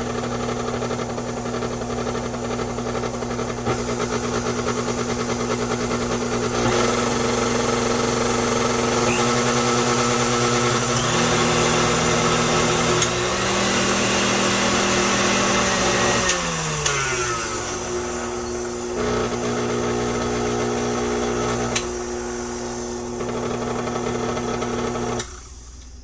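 Vintage Hobart-made KitchenAid stand mixer running, its motor making an odd noise whose cause the owner doesn't know. The hum steps up and down in pitch several times, slides down about two-thirds of the way through, and cuts off near the end.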